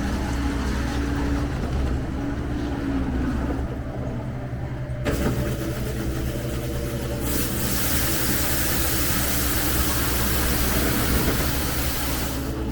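John Deere 325G skid steer's diesel engine running steadily. About five seconds in, the Paladin sweeper's rotating broom starts up and a loud, rushing hiss of bristles on the pavement joins the engine, growing stronger a couple of seconds later.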